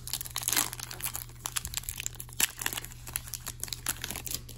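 Foil wrapper of an Upper Deck hockey card pack crinkling and tearing as it is peeled open by hand: a dense run of sharp crackles that stops near the end.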